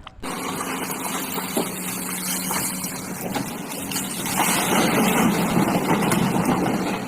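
A small motor hums steadily under a rushing hiss of spraying water, which grows louder about four seconds in.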